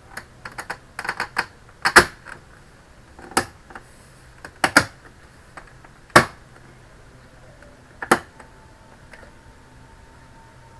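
Plastic snap clips of an Asus V222U all-in-one PC's screen panel clicking into the frame as the panel is pressed home with the palms: a quick run of small clicks at first, then single sharp snaps every second or two, the panel being seated until everything is fitted.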